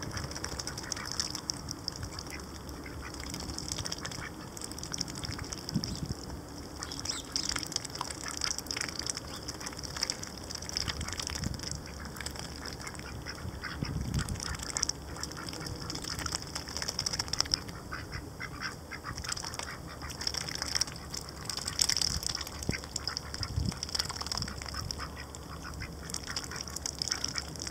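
White domestic ducks dabbling their bills in wet mud: a dense, irregular run of quick wet slurps and crackles as they sieve the mud.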